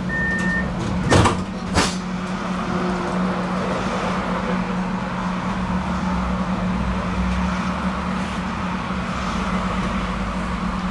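Tram's door-warning beeps end and its doors shut with two loud knocks about a second in. A steady electric hum follows, with a low rumble growing from about five seconds in.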